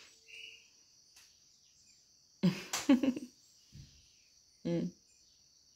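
Steady, high-pitched chirring of insects, with two short voice sounds breaking in about two and a half and four and a half seconds in.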